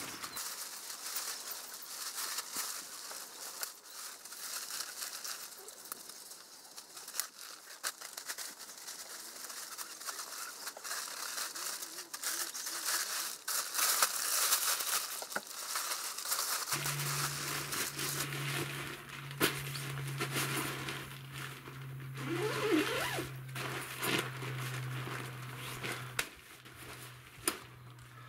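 Tent fabric rustling and crinkling as a dome tent is gathered, folded and stuffed into its carry bag, with many short rustles and light knocks. A steady low hum joins a little over halfway through.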